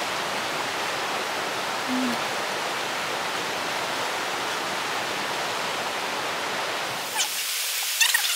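River water rushing over rocks in shallow rapids, a steady even rush. Near the end the sound changes abruptly to a thinner hiss with sharp ticks and short high chirps.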